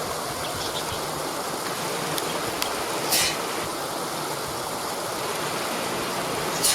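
Waterfall rushing steadily, with a short hissing burst about three seconds in and another near the end.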